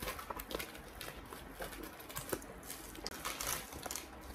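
Faint rustling and crinkling of a plastic mail packet being handled and opened, with scattered small clicks and taps.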